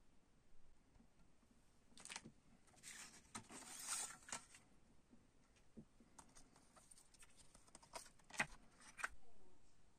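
Faint handling of a plastic CD jewel case and its paper insert: scattered light plastic clicks and paper rustling, with a scraping cluster a few seconds in and the sharpest click near the end.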